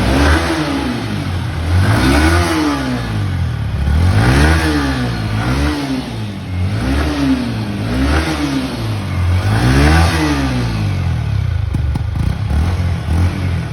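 Yamaha R15M's 155 cc single-cylinder engine revved through its stock exhaust: about seven throttle blips, each rising and falling, then dropping back to idle near the end.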